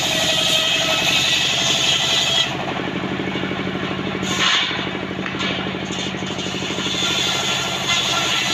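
Large engine-driven circular saw bench ripping rain tree (trembesi) timber: a high cutting hiss over the steady beat of the engine. The cutting stops about two and a half seconds in while the engine and spinning blade run on, and starts again near the end.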